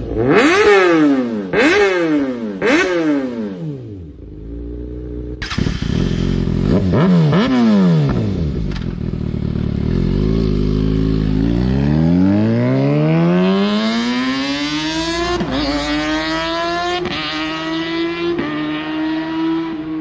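Kawasaki Ninja ZX-6R inline-four with an Austin Racing exhaust, revved in three quick, sharp throttle blips while standing. It then idles low and is blipped once more. Finally its engine note climbs steadily and holds high, with short breaks in the note.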